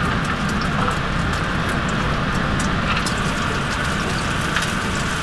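A pot of water at a hard rolling boil on a gas stove: a steady rushing bubble with scattered small pops.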